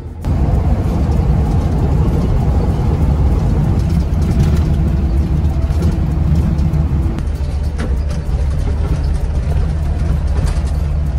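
Converted shuttle bus driving along a road, heard from inside the cab: steady engine and road rumble, loud and deep. It cuts in abruptly just after the start.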